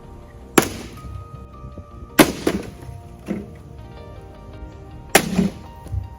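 Hard impact blows from a homemade hand weapon striking an object: three loud sharp hits, each followed by a smaller knock or two, over background music.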